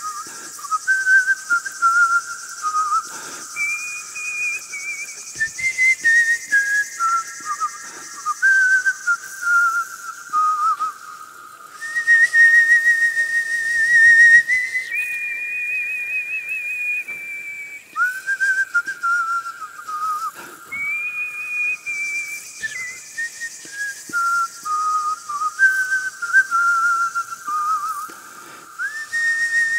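A whistled tune: a single whistle line stepping between held notes and short phrases, with a slight wavering vibrato, over a steady high hiss.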